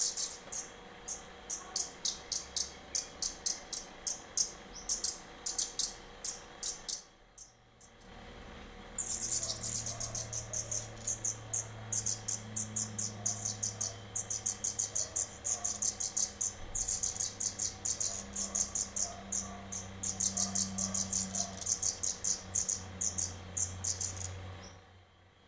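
Black redstart nestlings begging: rapid series of very high, thin chirps, in two bouts with a short pause about seven seconds in.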